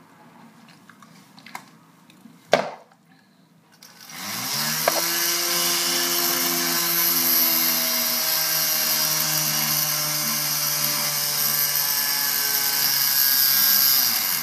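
Small battery-powered electric motor spinning a toy car's propeller: it starts about four seconds in with a rising whine, runs steadily with a hissing buzz, and cuts off near the end. A sharp click comes shortly before it starts.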